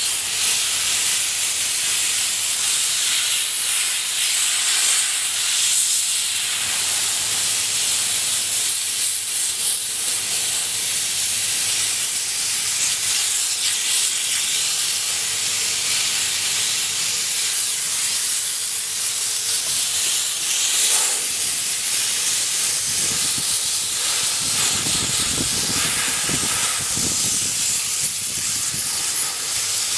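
Steam-cleaner wand jetting pressurised steam onto a car, a steady loud hiss. Some low rumbling joins toward the end.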